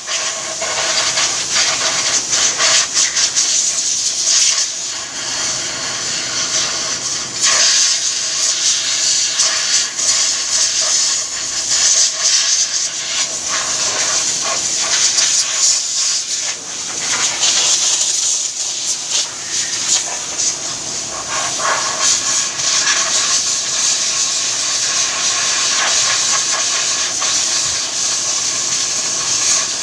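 A loud, steady hissing noise that swells and eases throughout.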